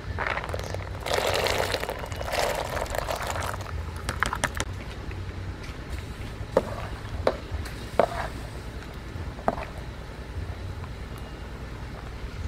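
Lotus seeds poured from a plastic basket into a pot of boiling liquid, a splashing pour lasting about three seconds. A metal ladle then stirs the pot, knocking against its metal side a few times.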